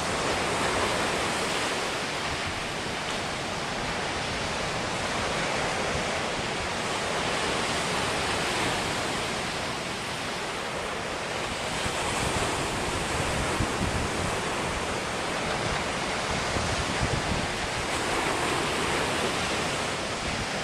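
Ocean surf breaking on a sandy beach: a continuous wash of breaking waves that swells and eases every few seconds as each set rolls in.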